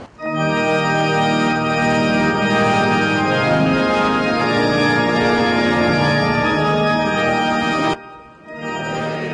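Church pipe organ playing full, sustained chords. It comes in suddenly at the start, breaks off about eight seconds in, and resumes more softly after a short pause.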